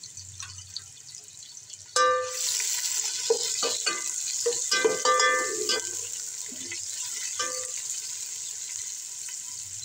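Sliced onions frying in hot desi ghee in a metal pot: a steady sizzle that jumps up suddenly about two seconds in as they are stirred, with a spoon scraping against the pot and ringing several times. The onions are in the early stage of being fried to a dark brown.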